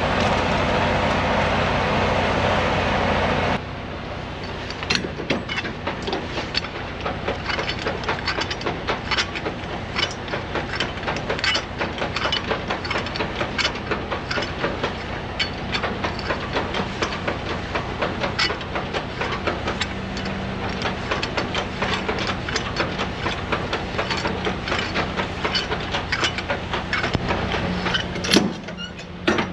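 Semi-trailer landing gear being cranked by hand: a long run of irregular clicks and clunks from the crank handle and gear. For the first few seconds a steady rumble and hiss is heard instead, and it stops abruptly.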